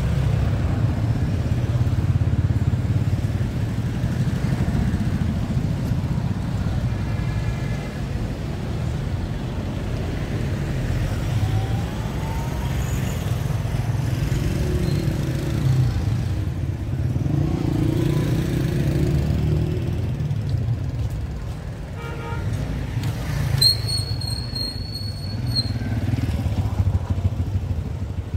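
Street traffic: a steady low rumble of motorcycles and cars passing, swelling and easing as vehicles go by. Near the end a high steady tone sounds for about two seconds.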